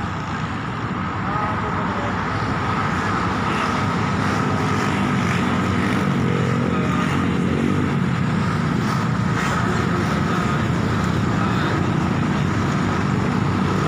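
Steady road traffic from cars and motorcycles passing on the road, with one engine hum coming up louder about five seconds in and fading a few seconds later.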